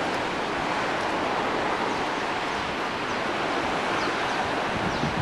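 Sea surf washing onto a small beach and rocks, a steady even rush, with a few faint short high chirps from about two seconds in.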